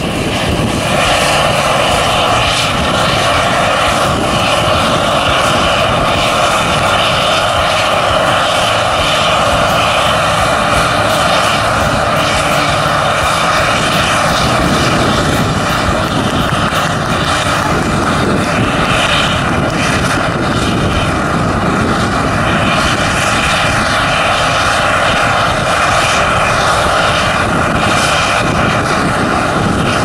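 Claas Lexion 530 combine harvester running under load while cutting and threshing wheat: a loud, steady machinery drone with a constant high whine running through it.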